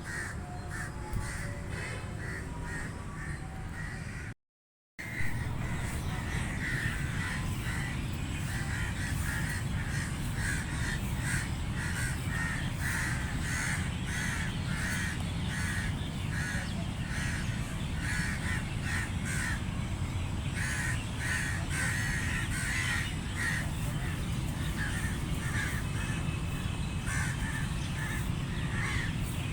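Crows cawing, many short calls in quick succession and overlapping, as from several birds at once, over a steady low background rumble. The sound cuts out to silence for about half a second near the start, then the cawing resumes.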